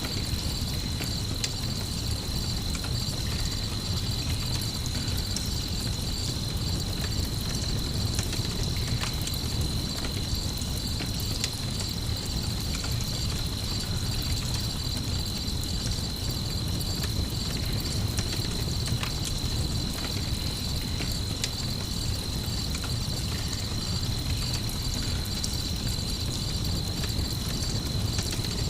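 Crickets chirping in a continuous high trill over a steady low rumble, with occasional faint crackles of a campfire.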